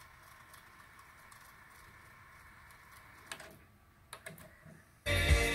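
Nakamichi Cassette Deck 1 fast-forwarding a tape with a faint steady whir. A little past three seconds the transport clunks to a stop, and a few mechanism clicks follow as play is engaged. Near the end, music from the tape starts playing loudly.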